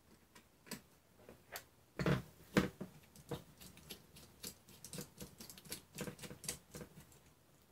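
Clicks and knocks of a carbon-fibre FPV quadcopter frame being handled on a silicone work mat: a couple of louder knocks about two seconds in as the frame is turned over and set down, then a quick run of small clicks and taps as the hands work on it.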